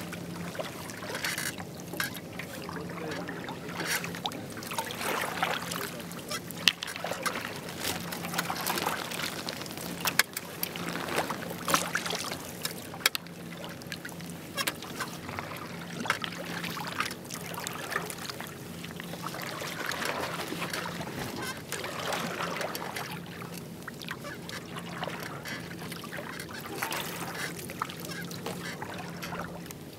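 A double-bladed kayak paddle dipping and pulling through calm water, alternating sides, with a splashing swish about every one and a half seconds. There are a few sharp knocks along the way.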